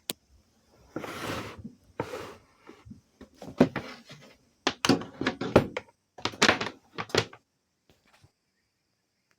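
A series of irregular knocks, clicks and short scraping noises, as of hard objects being handled and set down, stopping about seven seconds in.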